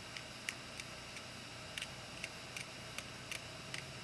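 Light, irregular metal clicks of the flint-spring screw being unscrewed from a Zippo lighter's insert.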